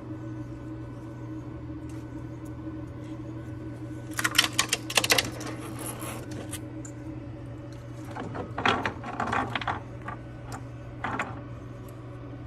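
Small plastic 3D-printed parts clicking and rattling in quick clusters, about four to six seconds in and again about eight to ten seconds in, as they are snapped off a flexible printer bed and handled. Under this runs the steady hum of the running printers.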